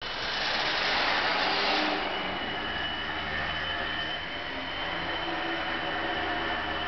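Electric motor and propeller of a small indoor RC biplane running, louder with more rush for the first two seconds, then a steadier whine as it flies.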